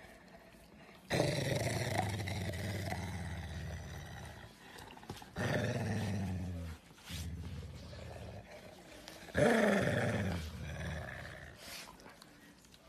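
A yellow Labrador retriever growling with teeth bared at another dog: three long growls with short pauses between them, the first and longest lasting about three and a half seconds.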